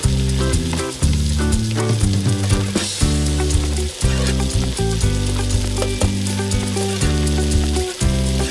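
Food frying and sizzling in a pan while being stirred, with fine crackling throughout. Background music with a steady, stepping bass line plays under it.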